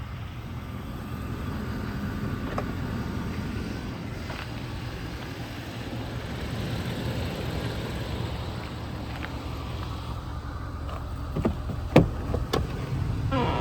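A steady low rumble, then near the end a few sharp metallic clicks and a knock, the loudest about twelve seconds in: a truck door being unlocked and its latch opened.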